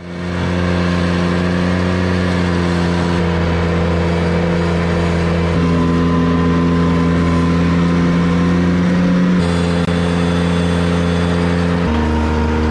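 Ventrac 4500Z articulating tractor's Kubota gas engine running steadily under load while its Tough Cut deck mows tall grass and brush. The sound fades in at the start, and the engine note shifts abruptly in pitch a few times.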